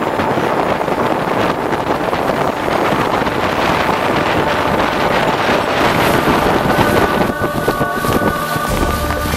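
Outboard motor pushing a dugout canoe along at speed, mixed with wind buffeting the microphone and water rushing at the hull. About seven seconds in, a steady engine whine stands out more clearly.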